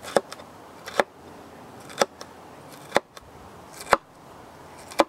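A knife slicing a red bell pepper into slivers on a wooden cutting board, the blade knocking down onto the wood about once a second.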